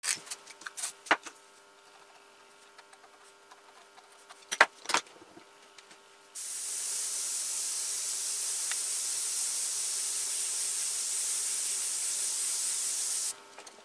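A few clicks and knocks of tools being handled, then about six seconds in an airbrush starts spraying: a steady high-pitched hiss of air for about seven seconds that cuts off suddenly near the end.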